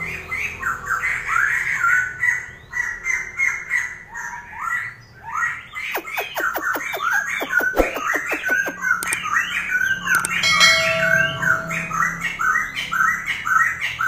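Caged wambi songbird chirping rapidly and without pause in short repeated notes. A run of sharp clicks comes about six to eight seconds in.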